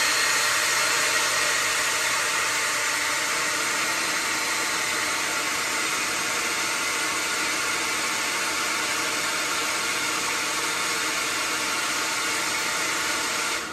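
Handheld hot-air blower running steadily, a continuous rush of fan and airflow noise, switched off at the very end. It is heating a LiFePO4 battery BMS's temperature sensor to trip the high-temperature charge protection.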